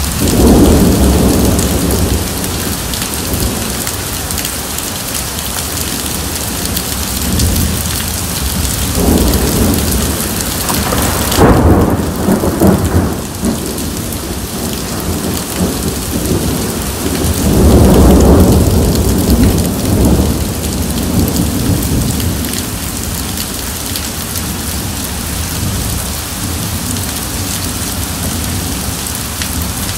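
Heavy rain pouring and splashing on a wet surface in a thunderstorm. Rolling thunder rumbles three times: just after the start, about ten seconds in, and again about eighteen seconds in.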